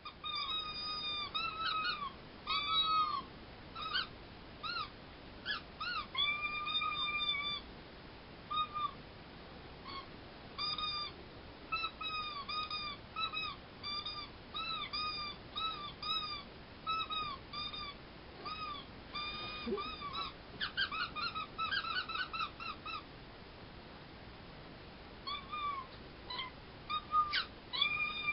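Toy squeakers squeezed by two fursuiters in short, high squeaks, traded back and forth in irregular bursts like a conversation, with a quick run of rapid squeaks about three-quarters of the way through.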